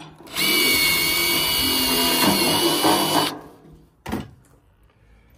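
Makita cordless drill boring a pilot hole for a pop rivet through the sheet-metal square downspout, its motor whining steadily for about three seconds before stopping. A single short knock follows about four seconds in.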